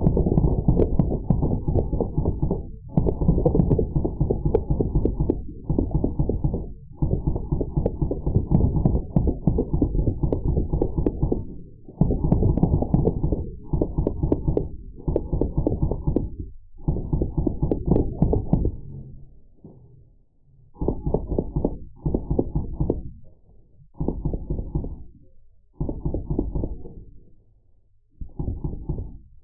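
Drozd Blackbird full-auto BB guns firing in bursts, heard slowed down so that each shot becomes a deep, rapid thud. There are about a dozen bursts of one to four seconds each, with short gaps between them.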